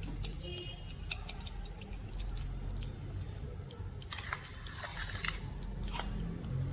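Steel spoon scraping solid ghee out of a steel jar and knocking dollops into an empty steel kadhai: irregular light clicks and scrapes of metal on metal, busier in the second half, over a low steady hum.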